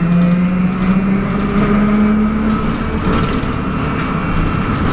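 Trolza-5275.03 "Optima" trolleybus accelerating: the electric traction drive's whine rises in pitch over the first two and a half seconds, then fades, over the steady rumble of tyres and body.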